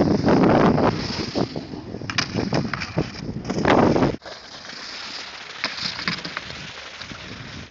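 Wind buffeting a cell-phone microphone, a loud rough rush with a few sharp crackles, dropping suddenly about four seconds in to a quieter steady rush.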